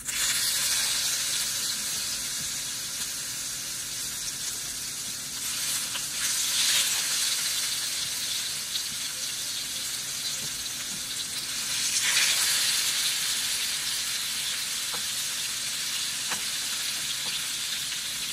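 Seasoned salmon fillets sizzling loudly in hot olive oil in a nonstick frying pan. The sizzle breaks out suddenly as the first fillet goes in and flares up again about six and about twelve seconds in as more fillets are laid in the pan.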